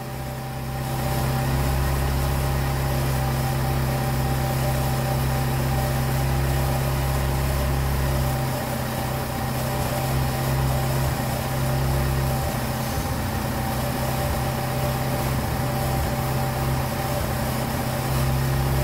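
Dodge Stratus car engine idling steadily, with a fast idle that points to a vacuum leak. About eight seconds in, its deep low hum drops and turns unsteady.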